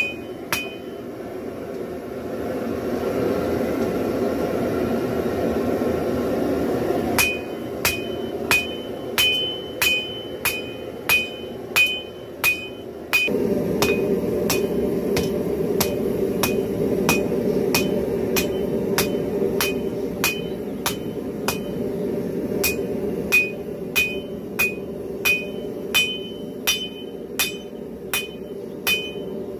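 Hand hammer striking hot spring steel on a steel anvil, each blow with a short metallic ring. A few blows, then a pause of about six seconds, then steady hammering at about two blows a second, over a steady rushing noise.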